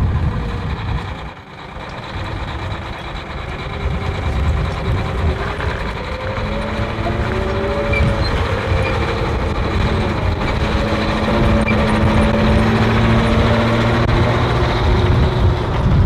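Tracked Bradley fighting vehicle's diesel engine running as it drives on its tracks, a steady low engine note with a few whining tones sliding up and down in pitch. It grows louder over the first few seconds as the vehicle comes closer.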